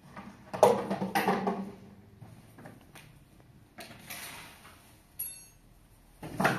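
Clattering and knocking of a plastic waste bin and dustpan being handled, loudest about half a second in. About four seconds in, a straw broom swishes fabric scraps into the dustpan, and a single knock follows near the end.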